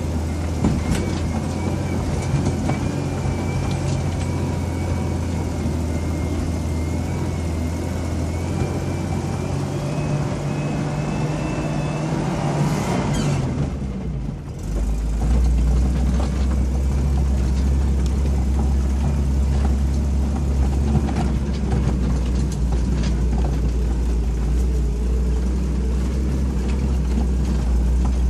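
A vehicle's engine pulling up a rough, rocky dirt track, heard from inside the cab, with a steady low drone and frequent knocks and rattles from the body jolting over stones. About halfway through the engine sound briefly drops away, then comes back stronger.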